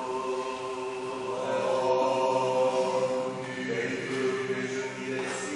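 Eastern Orthodox liturgical chanting by male voices, sung in long held notes that step from pitch to pitch.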